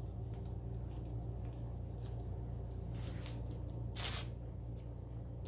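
Faint clicks and scrapes of a hand tool working the clamp bolt of a handlebar light bracket, over a steady low hum. A short hiss-like rustle comes about four seconds in.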